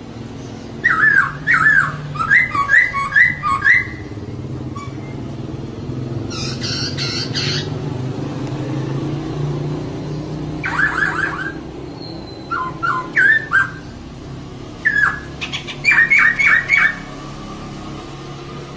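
Female poksay (laughingthrush) calling in bouts of fast repeated chattering notes, with a harsher rasping burst about six seconds in, over a steady low rumble.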